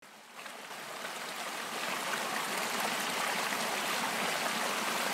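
Shallow creek water running over rocks, a steady rushing babble that fades in over the first couple of seconds.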